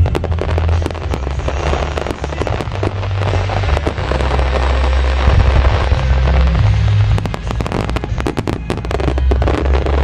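Starmine fireworks barrage: shells bursting in quick succession with dense crackling and popping, over music with a heavy bass line.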